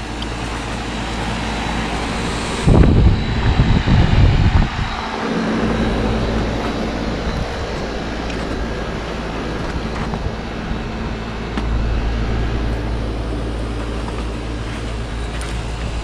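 Carrier heat pump outdoor unit running steadily in heat mode, a fan and compressor hum. About three to five seconds in there is a loud, irregular low rumbling.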